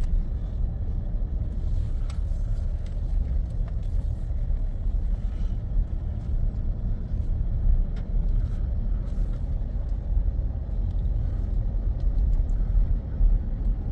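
Toyota pickup truck's cabin noise while driving: a steady low rumble of engine and road.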